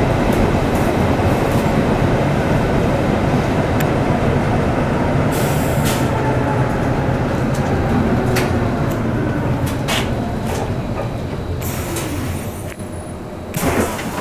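Older tram heard from inside the passenger saloon while running: a steady rumble of wheels on rail and running gear, with scattered knocks and rattles. The level eases a little near the end, then a short loud clatter comes.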